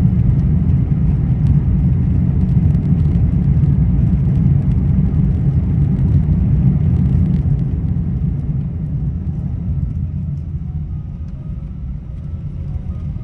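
Airbus A380 airliner noise: a steady low rumble that eases off over the last few seconds.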